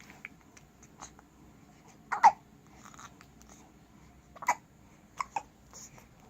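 Newborn baby hiccuping: short, sharp hiccups, the loudest about two seconds in and three more in the second half, two of them close together.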